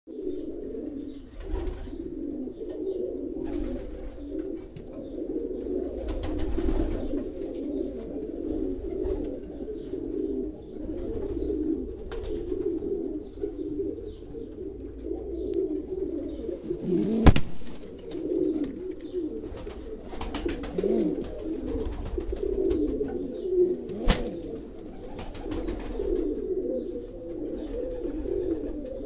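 Domestic pigeons cooing continuously, several low coos overlapping one another. Two sharp clicks cut through, one about two-thirds of the way in and one near the end.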